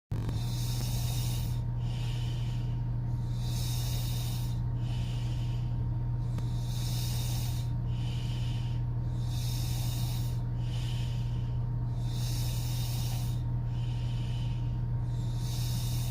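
A sleeping woman's heavy open-mouthed snoring breaths, a hissing breath in and out about every three seconds, over a steady low hum that is the loudest sound throughout.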